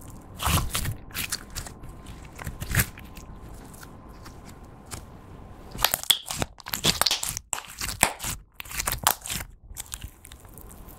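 Thick clear slime being stretched, folded and squeezed by hand, giving irregular clicks and pops as trapped air breaks. The pops come thicker and louder from about six seconds in.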